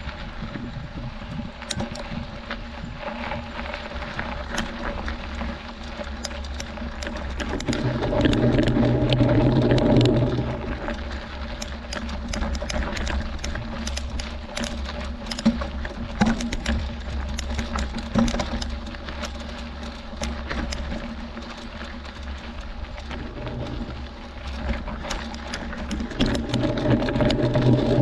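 Mountain bike climbing a rocky gravel road: tyres crunching over stones, with a constant patter of small clicks and rattles from the bike, and two louder stretches, about eight seconds in and near the end.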